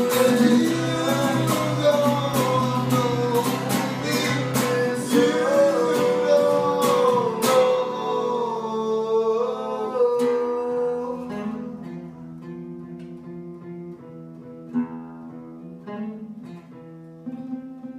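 Acoustic guitar strummed under a man's singing voice. About seven seconds in the strumming stops while the voice holds a last line. From about ten seconds the guitar goes on alone with quieter picked notes, fading toward the end.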